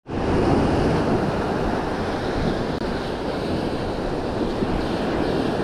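Ocean surf breaking and washing up a sand beach, a steady noise, with wind blowing on the microphone.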